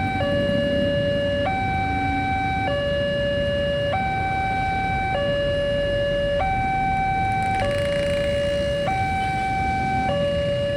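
Electronic two-tone warning siren of a railway level crossing barrier. It alternates steadily between a lower and a higher tone, switching about every 1.2 seconds.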